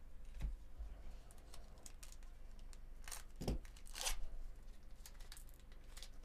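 A 2024 Bowman Chrome hobby pack's foil wrapper being torn open and crinkled in gloved hands: a run of crackles and rustles, with the loudest tearing about three to four seconds in.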